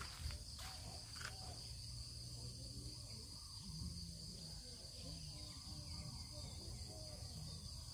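Crickets chirring in one steady high-pitched drone, with faint distant voices underneath.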